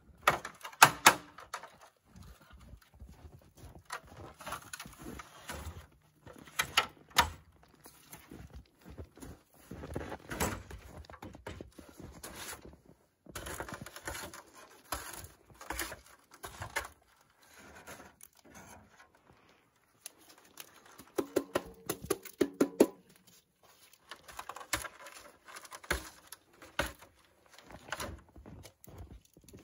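Irregular knocks, clunks and scrapes of a stepladder being set up and climbed and metal wood-stove pipe sections being handled, with a cluster of sharper clanks past the middle.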